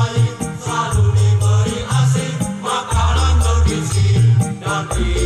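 Men's choir singing in parts, with a strong low bass line changing notes every second or so and a steady ticking percussion.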